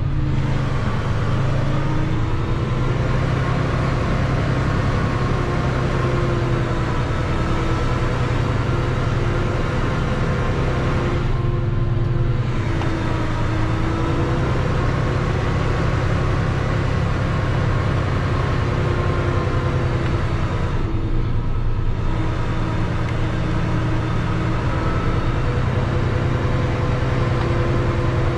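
A semi-truck's diesel engine running steadily at low speed while the rig creeps up a narrow road. Its pitch drifts slightly, and twice the sound briefly eases off.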